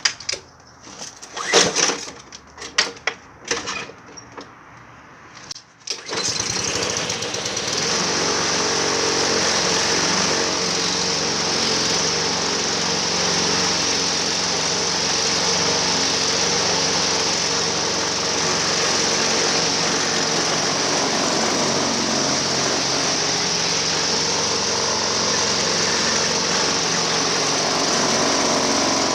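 A few knocks and clatters, then the 8 hp Honda engine of a Husqvarna walk-behind mower starts about six seconds in and runs steadily at an even speed.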